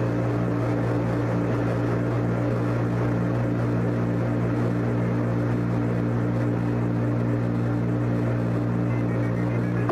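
Steady electrical hum with a hiss over it, from an Apollo mission radio recording with no one talking.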